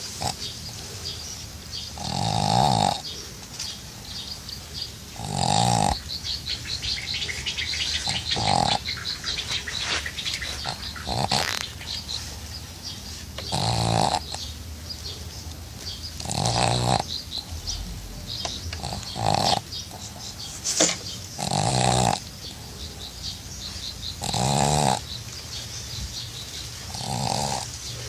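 A pug snoring in its sleep: loud nasal snores that come about every three seconds, each lasting up to a second.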